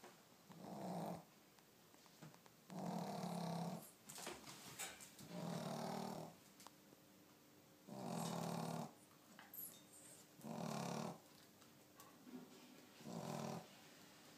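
A sleeping pet snoring: six even snores, each about a second long and roughly two and a half seconds apart.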